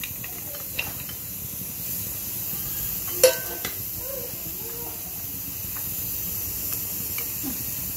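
Steady hiss of a steel pot of milky bottle gourd godshe simmering on the stove while a spoon stirs in cashews and raisins. About three seconds in comes one sharp metal clink of the spoon against the pot.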